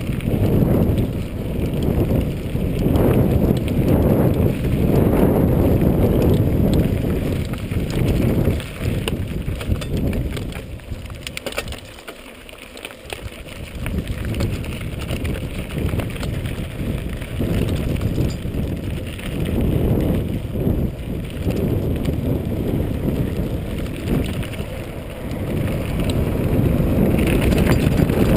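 Mountain bike rolling fast down a rough gravel track: tyres crunching over loose stones and the frame rattling over bumps, mixed with wind rumble on the microphone. It quietens for a couple of seconds about halfway through, then picks up again.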